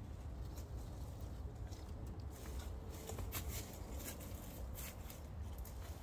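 Dry leaf mulch rustling and crackling in short, irregular bursts under hands and feet, busiest in the second half, over a low steady rumble.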